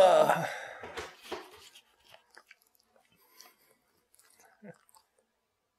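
A man's short laugh, close to the microphone, fading within about a second. After it come faint, scattered clicks and smacking sounds.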